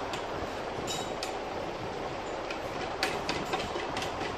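A black pedicure-chair basin tray being handled and fitted onto the chair frame gives a few light knocks and clicks, several of them close together near the end, over a steady background rumble.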